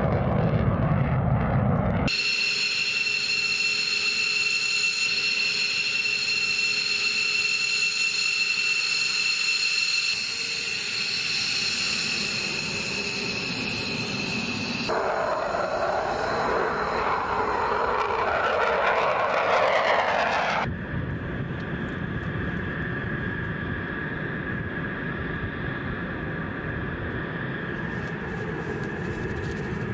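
Military fighter jet engines in a series of cut shots. First a jet's roar as it climbs away. About two seconds in comes a steady high-pitched jet whine, and from about fifteen seconds a rushing roar. From about twenty-one seconds an F-15 on the runway gives a steady whine over a low rumble.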